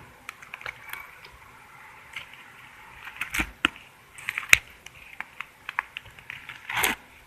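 Slime being squeezed and stretched by hand, making irregular small squelches and wet pops, with a few louder pops in the second half.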